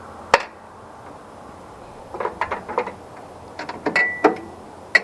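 Scattered metallic clicks and knocks from parts of a portable sawmill being handled, in two short clusters, one knock ringing briefly.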